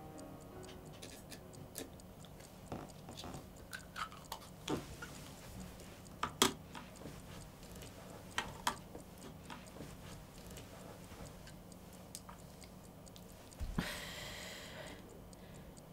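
Quiet room tone with faint scattered ticks and a few sharper clicks as a blue asthma inhaler is handled and set down on a wooden bedside table. About a second of breathy hiss near the end.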